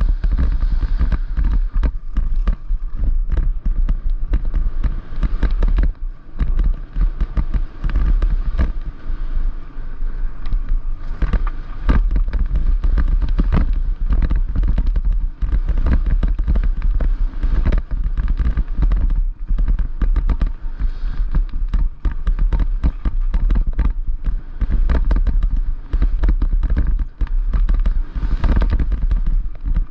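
Downhill mountain bike descending a rough trail over roots, rocks and dirt: a constant rapid clatter and rattling of the bike and tyres over the bumps, over a steady deep rumble of wind buffeting the helmet-mounted microphone.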